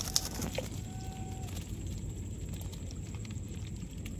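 Live shrimp and small fish flicking and jumping in a woven cane basket, giving light scattered ticks and crackling, with a couple of sharper clicks near the start, over a low steady rumble.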